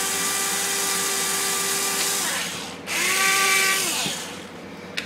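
Small cordless drill with a 1/16-inch bit drilling a hole in a drone frame plate. The motor whines steadily for about two and a half seconds and winds down, then a second, shorter run of about a second winds down too.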